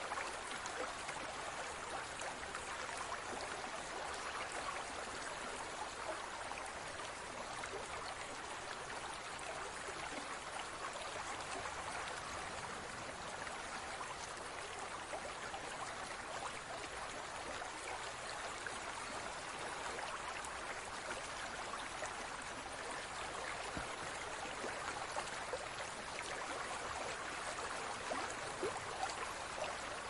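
Running water babbling steadily, with many small trickles and splashes.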